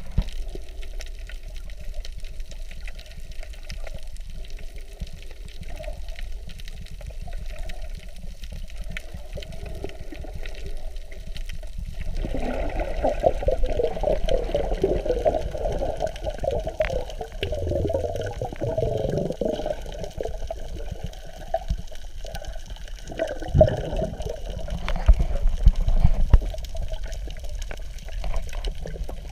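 Muffled water sloshing and churning around an action camera held underwater in its waterproof housing, becoming louder and more turbulent from about twelve seconds in. A few knocks sound near the end.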